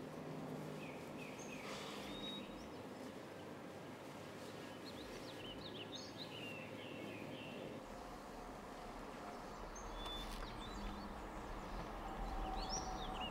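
Small birds chirping in short, scattered calls over steady outdoor background hiss; a low hum joins about two-thirds of the way through.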